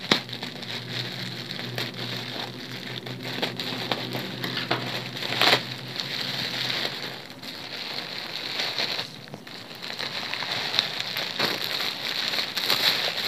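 Thin black plastic courier mailer bag crinkling and rustling as it is pulled open by hand, with one sharper crackle about five and a half seconds in.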